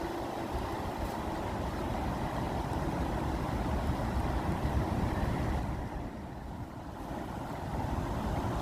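Water rushing steadily, with a low rumble under it; it turns softer and duller for about a second around six seconds in.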